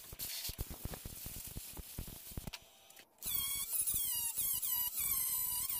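Light irregular clicks and scraping of a hand tool on the fresh weld, then, about three seconds in, an electric angle grinder starts and runs with a high whine that dips and wavers as it grinds down the weld on the sheet-metal windshield frame.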